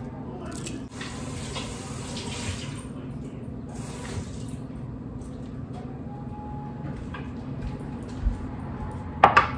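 Kitchen tap running for about two seconds, then a shorter second run of water, over a steady low hum. A couple of sharp knocks near the end.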